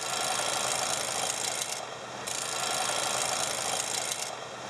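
Smittybilt electric winch motor and gear drum running in bursts, cutting out briefly about two seconds in and again near the end. It is working with a large voltage drop at the solenoid, which the owner puts down to a poor ground on the solenoid cover.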